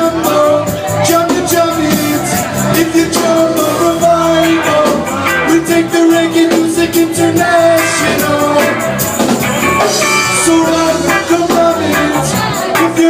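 Live roots reggae band playing with a lead vocal, a steady beat of drums and percussion under sustained instrument and vocal lines.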